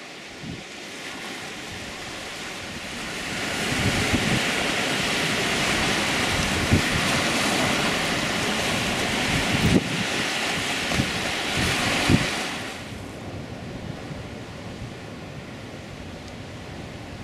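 Sea surf and wind: a steady rush of waves with wind buffeting the microphone in low thumps. It grows louder about three seconds in and drops back about thirteen seconds in.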